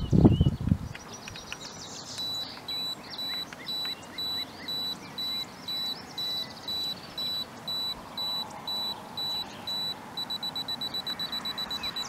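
Electronic beeper sounding a steady high-pitched beep just under twice a second. About two seconds before the end the beeps speed up to a rapid run of about seven a second.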